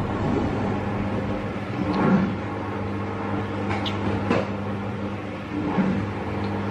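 Mouth sounds of someone eating by hand: a few short chewing smacks and clicks, the strongest about two seconds in and just past four seconds. Under them runs a steady electrical hum from an appliance.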